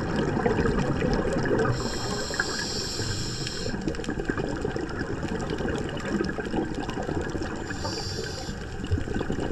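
Scuba regulator breathing heard underwater: a hissing inhale about two seconds in and a shorter one near the end, with the low bubbling rumble of exhaled bubbles and water noise throughout.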